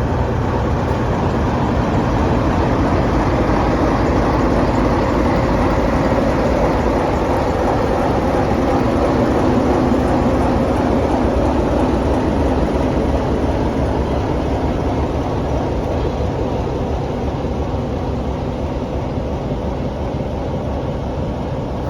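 Sulzer pump snoring: running steadily with a continuous churning noise as it draws air together with water at its intake, swelling slightly midway and easing a little near the end.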